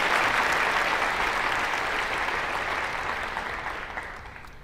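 Audience applauding, the clapping dying away over the last two seconds.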